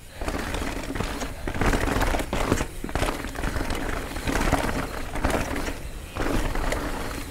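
Carbon full-suspension mountain bike (Canyon Spectral 29 CF 9) ridden fast down a dirt trail: tyres rolling over dirt and roots with many quick clatters and rattles from the bike over bumps, and a steady low wind rumble on the helmet or chest camera's microphone.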